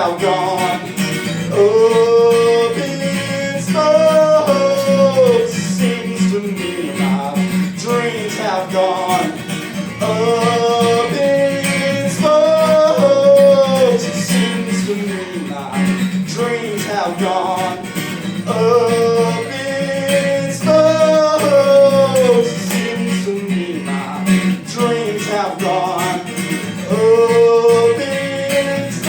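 Guitar-backed song with a man singing long, bending sustained notes in repeating phrases.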